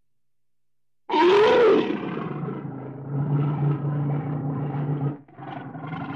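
Brown bear vocalizing. About a second in, a sudden loud call comes in that rises and then falls in pitch. A long, lower growl follows, breaks off for a moment near the end, then goes on.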